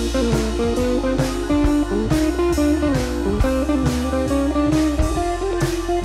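Background score music: an electric guitar plays a melody over a steady bass line and a regular drum beat.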